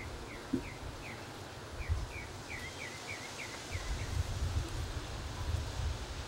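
Wind buffeting the microphone in uneven low gusts. Over the first four seconds a run of about a dozen short, high, falling chirps comes and goes.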